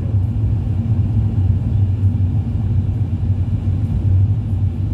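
Steady low rumble of a moving road vehicle's engine and tyres, heard from the vehicle while it is being driven.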